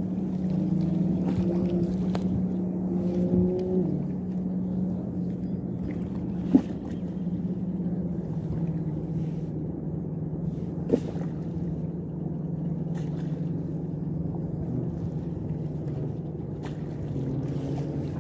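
Steady low drone of a boat engine running nearby, its pitch settling slightly lower about halfway through. Two sharp knocks sound about six and a half and eleven seconds in.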